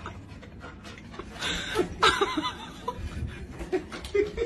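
A person chuckling and laughing, loudest about one and a half to two seconds in, with a few light clicks and knocks.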